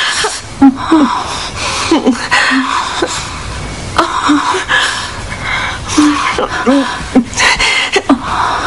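A woman crying in short, wavering sobs, gasping and catching her breath between them.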